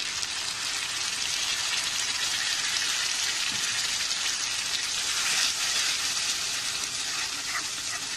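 Wet ground masala paste of onion, tomato and cashew sizzling steadily in hot butter in a kadhai as a spoon spreads and stirs it.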